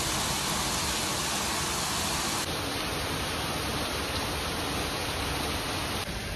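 Steady rain falling, a continuous even hiss.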